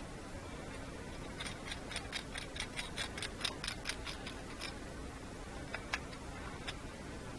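Ratchet mechanism clicking rapidly and evenly, about five clicks a second for some three seconds, then two single clicks.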